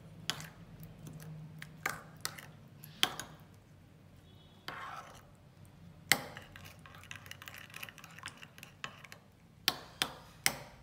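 Metal ladle stirring soup in a pot, clinking sharply against the pot's side every second or two, with a soft swish of the liquid between the knocks.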